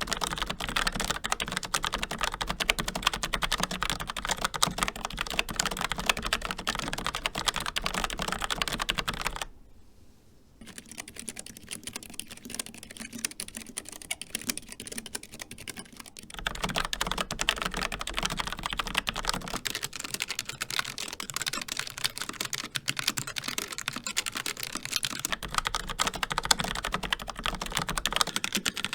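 Fast typing on mechanical keyboards, a dense run of key clicks. First comes the Logitech MX Mechanical with Kailh low-profile brown switches. After a one-second pause, about ten seconds in, the typing goes on more quietly on a Keychron K3 with optical red switches. It grows louder again past the middle on a Logitech G915 with GL linear red switches.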